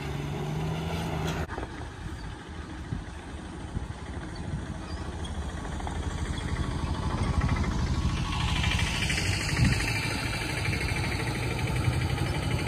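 Diesel engine of a heavy truck running as it drives into a river to ford it, growing louder from about halfway through, with a hiss joining it near the end.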